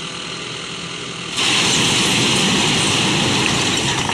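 Dump truck tipping a load of rocks: its engine runs steadily, then about a second and a half in a sudden loud, steady rush of noise sets in as the rocks slide out of the raised bed.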